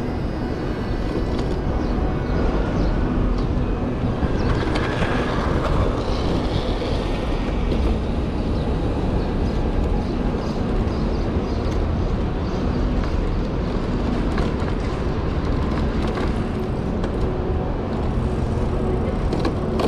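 Steady rumble of a bike-share bicycle being ridden along city streets, picked up by a GoPro mounted on it: wind on the microphone and tyre noise, with street traffic around.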